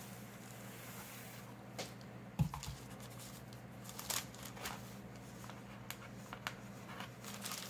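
Light paper rustling and soft clicks as thin Bible pages are pressed and smoothed flat by hand. One dull thump comes about two and a half seconds in, over a steady low hum.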